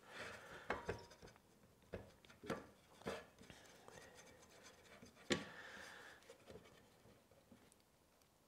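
Hardwood cutting-board strips being shifted and turned by hand on a workbench: a few light wooden knocks with soft scraping between them, the sharpest knock about five seconds in.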